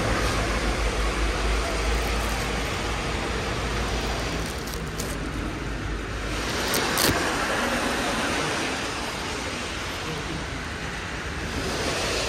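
Steady road traffic noise with a low rumble, stronger in the first half, and a sharp click about seven seconds in.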